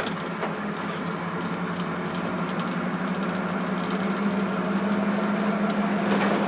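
1971 pickup truck's engine running steadily just after restarting from being flooded, its steady hum growing slightly louder about halfway through.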